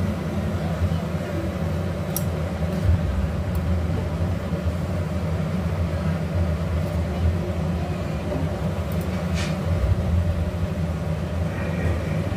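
Gas stove burner flame running with a steady low rumble as a roti is held over it to puff, with a few faint light clicks.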